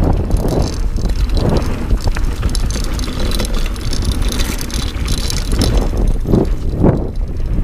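Dartmoor Primal 29er hardtail mountain bike riding fast down a dirt trail: wind buffeting the action camera's microphone over the rumble of the tyres and the rattle of the bike, with a few sharper knocks over bumps near the end.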